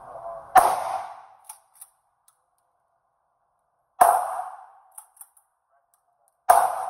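Three shots from an Akkar Churchill 612 Tactical 12-gauge pump-action shotgun firing 00 buckshot, about a second in, near the middle and near the end, each trailing off with ringing echo in the indoor range. A few light clicks follow the first two shots.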